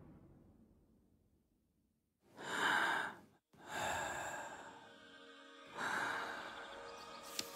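A woman's breathing: three breathy breaths or sighs, the first about two seconds in, after a deep rumble fades to silence. A faint steady musical tone comes in halfway through, and there is a short click near the end.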